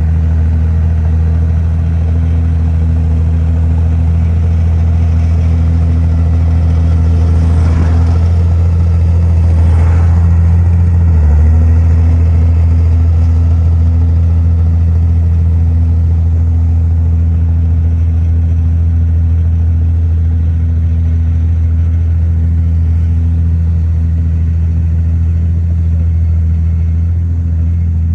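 Heavy diesel engine of earthmoving machinery running steadily with a low, even drone. Its note dips briefly about eight to eleven seconds in, with two short noisy sounds over it.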